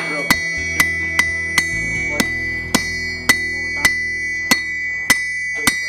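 Hammer blows on steel and anvil, about two ringing strikes a second at an even pace, over background music.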